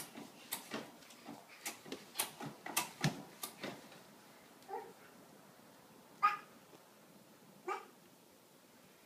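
Bare feet patting and slapping on a hardwood floor, with the clicks and creaks of a doorway baby jumper, as a baby bounces in it. These fall silent about four seconds in, and then come three short, high-pitched yelps a second or so apart; the middle one is the loudest.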